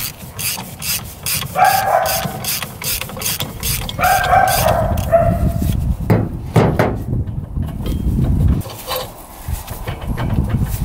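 A 400cc two-stroke mini tank engine running, with a fast rhythmic rattle of about four clicks a second from a drive belt that is far too loose. Two short higher-pitched whines come about two and four seconds in.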